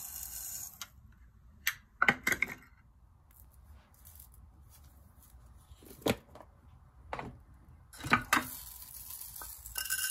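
Dry glutinous rice pouring from a plastic measuring cup into a glass bowl, a hiss of falling grains that stops about a second in. Then scattered clicks and knocks as the measuring cup is handled and set down.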